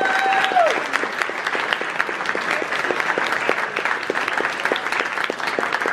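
Crowd applauding with dense, steady clapping, and one voice holding a cheer in the first moment.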